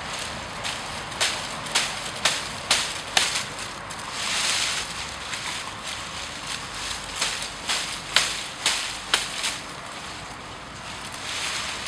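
Hatchet chopping the side shoots off a green, leafy poplar branch: two runs of about six sharp chops, roughly two a second, with rustling of the leafy branch around four seconds in and again near the end.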